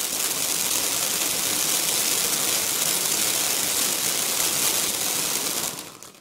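Duck fountain firework burning: a loud steady hiss of sparks with dense crackling, dying away near the end.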